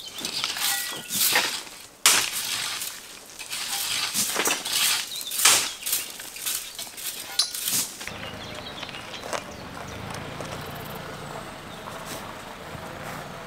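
Rakes and shovels scraping and crunching through gravel in a series of separate strokes; about eight seconds in they give way to a small 4x4's engine running steadily at low speed while towing a trailer.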